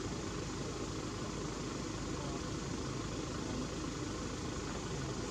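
A steady low mechanical rumble with hiss, like an engine running at idle, with no distinct events.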